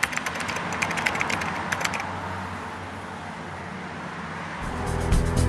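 Wood fire crackling: sharp, irregular pops over a steady hiss for about two seconds, then only the hiss. Music comes in near the end.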